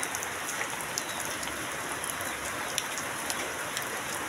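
Heavy rain falling steadily onto a waterlogged, muddy courtyard, a dense hiss with scattered sharper drop ticks.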